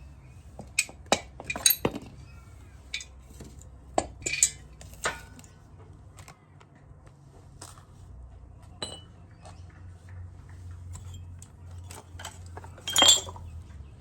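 Metal tools and parts clinking and knocking in a series of sharp, irregular clinks, the loudest cluster near the end, over a steady low hum.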